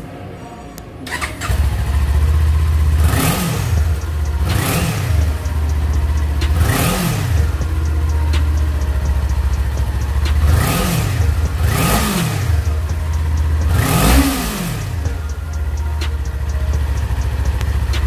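Kawasaki Ninja 400 parallel-twin engine on its stock exhaust, starting about a second in and then idling. Six quick throttle blips rise and fall in pitch over the idle.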